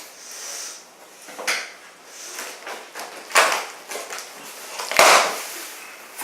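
Cardboard and styrofoam packing scraping and rubbing as an appliance is worked out of its box, with three louder scrapes: about a second and a half in, around three and a half seconds in, and near five seconds.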